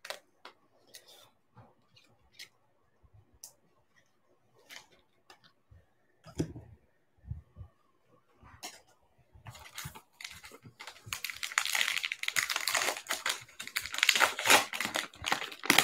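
A trading-card pack wrapper torn open and crinkled by hand, a dense crackling rustle that starts about nine seconds in and grows louder. Before it, scattered light clicks and taps as cards and a plastic card holder are handled.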